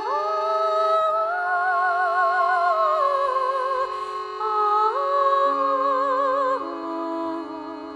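Background music: a slow melody, sung or played with vibrato, gliding between long held notes over a steady drone.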